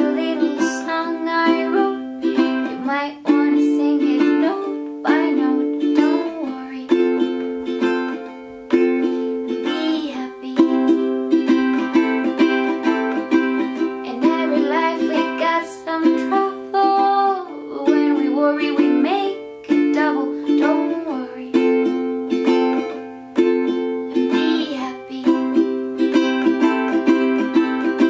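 Background music with a bright plucked-string tune and a steady rhythm.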